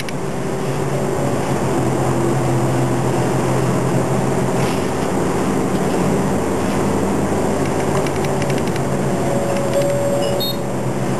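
Diesel engine of a route bus running steadily while the bus drives on, with road noise, heard from inside the cabin. A brief higher tone comes in near the end.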